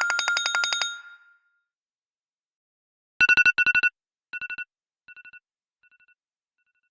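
iPhone ringtones played one after another. The first ends in a fast run of repeated notes that fades out about a second in. After a short pause a trilling telephone-bell ring starts, repeating in bursts that grow quieter each time, like an echo dying away.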